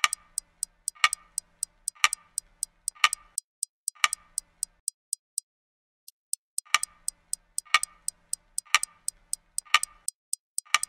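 Ticking-clock sound effect: light, quick ticks about five a second under a stronger tock once a second, pausing for about two seconds midway.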